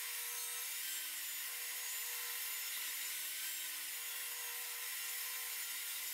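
Table saw running and ripping 2x6 lumber lengthwise into narrow leg pieces: a steady motor whine with the hiss of the blade cutting the wood.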